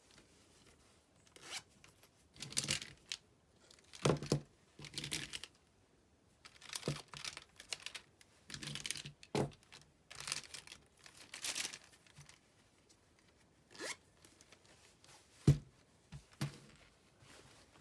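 Plastic pens and markers rustling and clicking against each other as they are pushed into a lined fabric pencil pouch, with the pouch's zipper being pulled. It comes as a series of short scratchy strokes, with one sharp click near the end.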